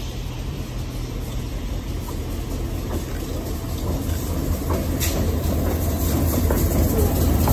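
Providence & Worcester diesel locomotives approaching and passing underneath, their engines' low rumble growing steadily louder as they draw near.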